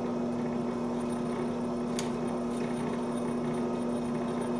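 Steady electric motor hum from workshop machinery, with a sharp click about two seconds in and a fainter tap shortly after.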